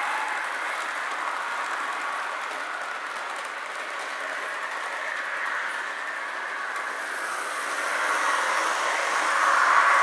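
Märklin model trains running on metal track: a steady rattle of wheels and motors that grows louder over the last couple of seconds as a train passes close by.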